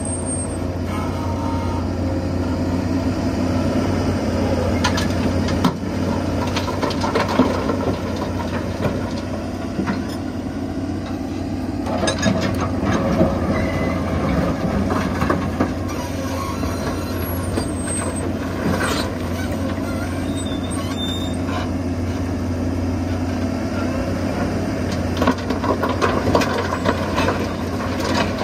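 Volvo EC210 excavator's diesel engine and hydraulics running steadily under load while it digs and loads rock. Rock clatters and scrapes several times as the bucket bites into the stockpile and tips its load into the dump truck's bed.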